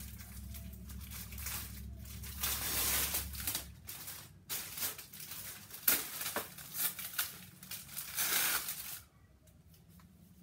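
Plastic bags and wrapping crinkling and rustling as items are handled and pulled out of a cardboard shipping box, in several bursts. The rustling stops about nine seconds in.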